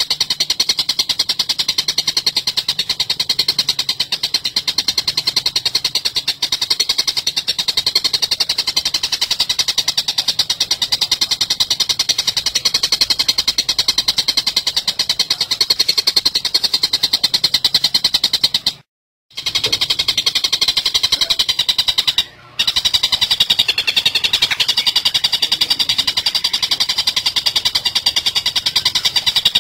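Tengkek buto bird calling in a fast, unbroken rattling chatter, pitched high. It cuts out briefly twice in the second half.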